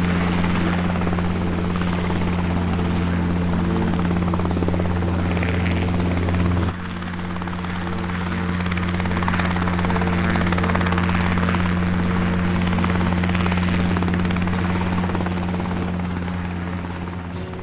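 DJI Phantom Vision Plus quadcopter's motors and propellers buzzing at a steady pitch, over a noisy hiss of wind. The sound drops suddenly about seven seconds in, then goes on steadily.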